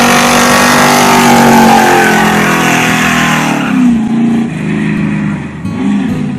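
Chevrolet El Camino SS's V8 held at high revs during a burnout, the rear tyres spinning with a loud hiss of tyre noise over the engine. About four seconds in the tyre noise drops away and the engine note wavers as the revs fall and rise again.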